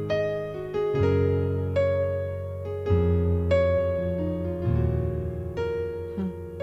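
Keyboard playing slow, sustained chords with no singing. A new chord is struck about every second and rings on, fading, before the next.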